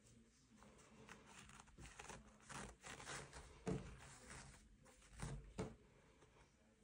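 Faint rustling of fabric as gathering threads are pulled and the top of a sleeve bunches into gathers, with a few slightly louder rustles a little past halfway and again later on.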